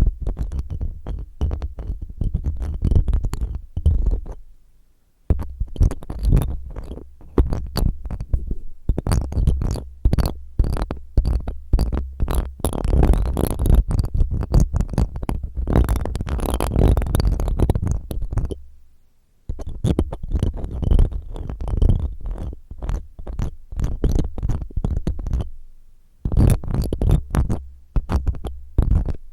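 A spiral ear-cleaning tool rubbed and scraped roughly in a microphone's ear, making dense, rapid crackling scratches over a deep rumble. It stops briefly about four and a half seconds in, again near nineteen seconds, and once more near twenty-six seconds.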